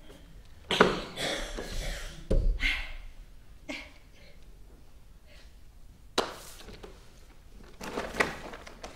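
Several thumps and knocks with rustling between them, the loudest about a second in and again just after six seconds, with a deeper thud around two and a half seconds: stage business in a play.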